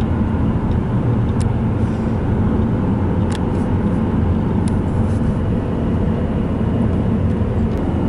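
Steady road and engine noise of a moving car heard from inside the cabin, a low even rumble with a few faint clicks.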